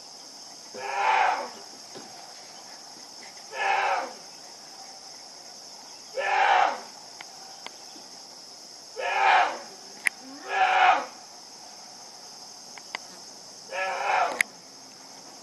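Young black bear bellowing, six short bawling calls a few seconds apart, each dropping in pitch at its end. The watchers take it for the bear calling for its mother.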